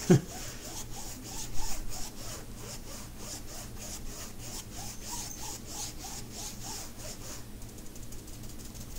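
A paintbrush scrubbing sealer over the resin drills of a diamond painting: a rhythmic scratchy brushing, about two to three strokes a second, that stops about seven and a half seconds in. There are a couple of brief louder bumps in the first two seconds.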